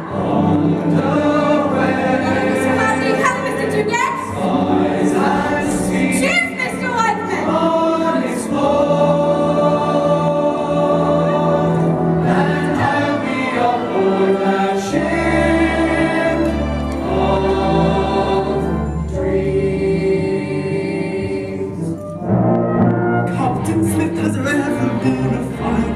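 Choral singing by a stage cast, accompanied by a live pit orchestra, in long held chords. A deep sustained bass note sits under the chords for a few seconds past the middle. Near the end the music thins and a new phrase starts.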